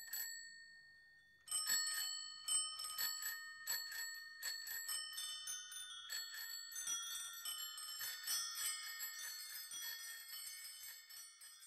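A quiet tinkling melody of struck, ringing bell-like notes at several pitches that overlap, starting after a short pause about a second and a half in and fading out near the end.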